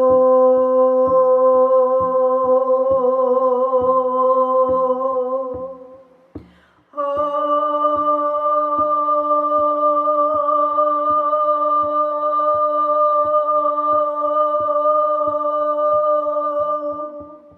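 Long sustained vocal toning, one held note that fades about six seconds in, a quick breath, then a slightly higher note held for about ten seconds, over a steady shamanic hand drum beating about twice a second.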